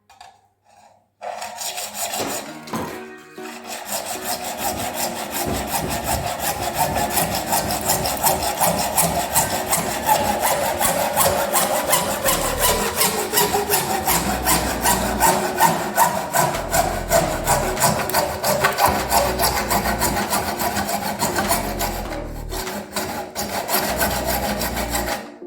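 Hand saw cutting with a steady run of rapid, even back-and-forth strokes. It starts about a second in and stops near the end.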